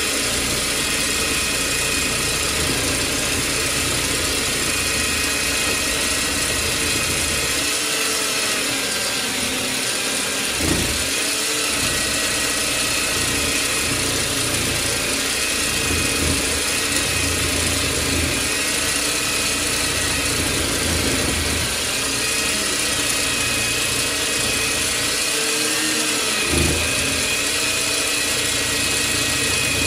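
Parkside portable metal band saw running steadily as its blade cuts through a rusty steel beam, with two brief knocks along the way.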